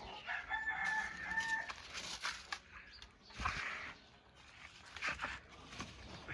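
A rooster crowing once, one held call about a second long near the start, followed by scattered short rustles and knocks.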